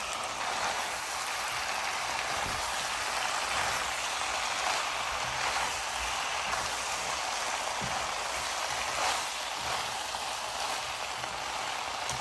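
Chicken macaroni with bell peppers and sauces sizzling in a nonstick frying pan as a steady hiss while it is stirred with a spatula, with a few soft knocks of the spatula against the pan.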